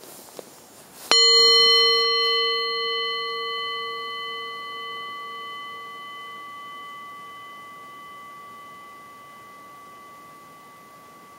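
Singing bowl struck once with a striker about a second in, ringing with a clear low tone and several higher overtones in a long ring that slowly fades.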